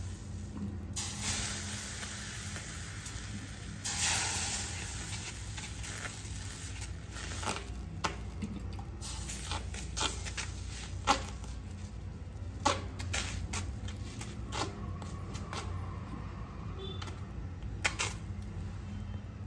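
Water hissing and sizzling on a hot iron tawa as a wet hand pats it over a sorghum-flour flatbread, the hiss strongest in the first few seconds and again around the middle. A few short, sharp taps come in the second half.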